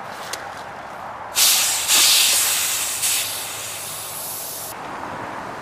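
High-pressure air hissing from the portable air tank's fill hose and valve during the charge of an Air Venturi Avenger PCP air rifle. A couple of small valve clicks come first. The loud hiss starts about a second and a half in, breaks briefly, fades, and cuts off suddenly near the end.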